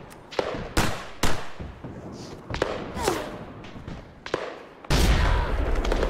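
Battle gunfire: scattered single gunshots, about six over four seconds, with a short falling whistle near the middle. About five seconds in a heavy explosion bursts in, and its deep rumble carries on.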